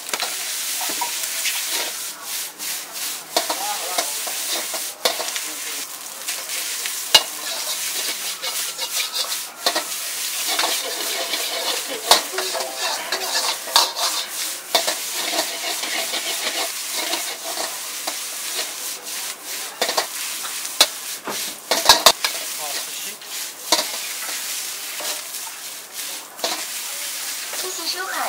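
Fried rice sizzling in a hot wok while a steel ladle scrapes and clanks against the pan again and again as the rice is stirred and tossed.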